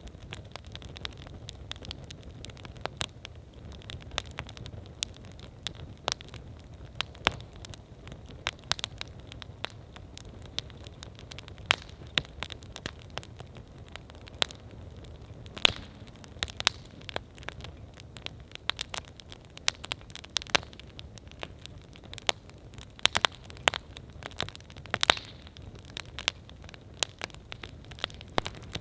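Wood campfire crackling: irregular sharp snaps and pops, a few much louder than the rest, over a steady low rumble.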